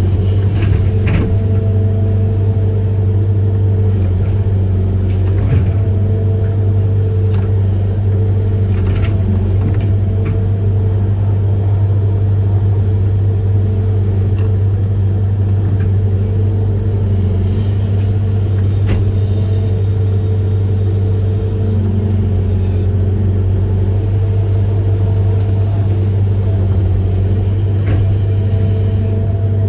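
Amphibious excavator's engine running at a steady pitch, with a few sharp knocks scattered through.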